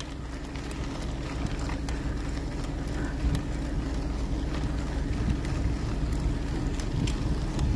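Steady riding noise from a bicycle rolling down a rough gravel road: wind on the microphone and tyre noise over a low, even hum, with scattered faint clicks of grit.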